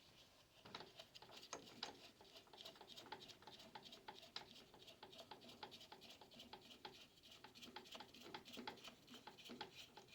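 Faint run of light, fairly even clicks, several a second, as the big nut is threaded and tightened by hand onto the umbrella holder's mount.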